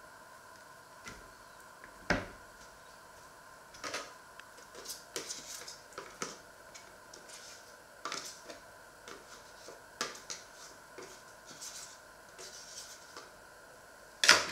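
Table knife scraping a soft spread onto slices of bread in short strokes, with light clicks and taps of the blade on the wooden cutting board and the tub. A sharper knock about two seconds in and a louder sharp knock near the end.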